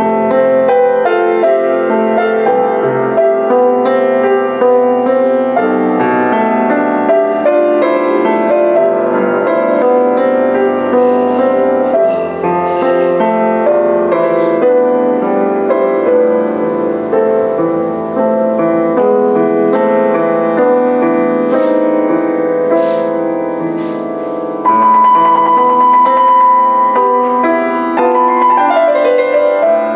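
Solo piano played on a Bösendorfer grand piano, with notes sounding continuously. It becomes suddenly louder about five-sixths of the way through.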